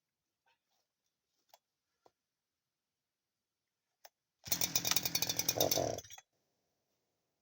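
Husqvarna 372-clone two-stroke chainsaw engine bursting into life and running for about a second and a half before cutting off suddenly, preceded by a few faint clicks.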